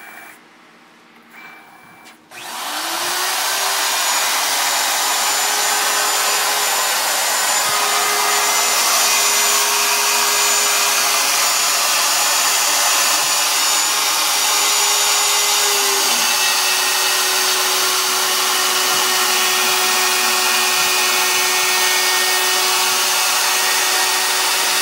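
CNC router cutting speaker holes in a studio monitor baffle. Two short beeps come first, then about two seconds in the spindle spins up with a rising whine and runs loud and steady through the cut, its pitch dipping slightly about 16 seconds in.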